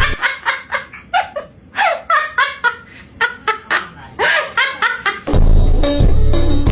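A bird's rapid chattering call, a quick run of short notes with a few falling slides, that sounds like laughter. Background music with a heavy beat comes back in about five seconds in.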